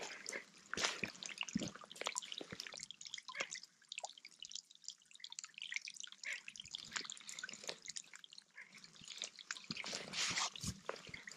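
Water dripping: irregular drops falling from snow-laden conifer branches, ticking and plinking into the lake shallows.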